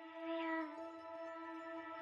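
Soft ambient background music with long held notes, fading in at the start.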